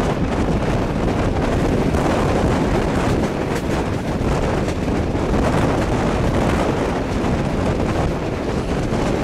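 Loud, steady wind buffeting the microphone held out of a moving passenger train's carriage window, with the train's running noise underneath.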